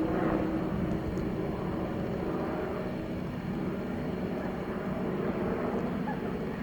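Steady low mechanical hum with a constant tone.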